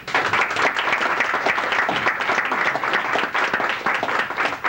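Audience applauding, a dense patter of hand claps that starts suddenly and keeps an even level.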